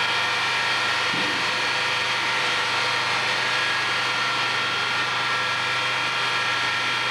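Centrifugal cream separator running at speed: a steady machine whine of several high tones held over a low hum.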